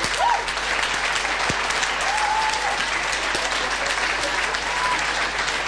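Audience applause: many hands clapping steadily, with a few short rising-and-falling calls heard over the clapping.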